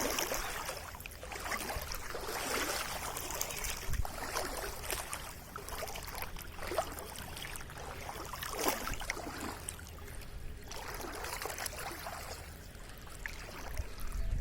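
Steady rushing of running and trickling water, with scattered light taps and clicks throughout.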